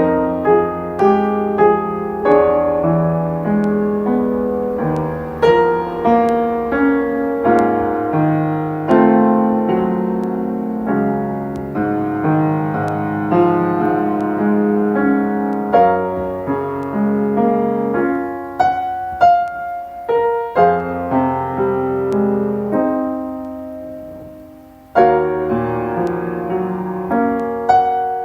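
Solo piano playing a slow melody over chords, each struck note ringing and dying away. About 24 s in a held chord fades right down before the playing starts again.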